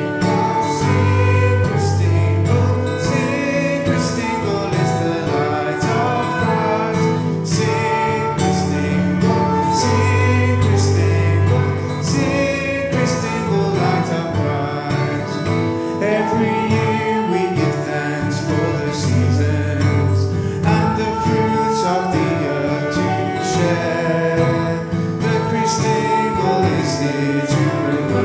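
Two acoustic guitars strummed with a saxophone, backing a man and a woman singing a worship song.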